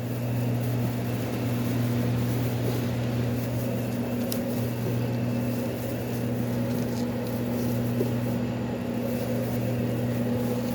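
Steady low electrical hum of running shop equipment, with a faint click about four seconds in.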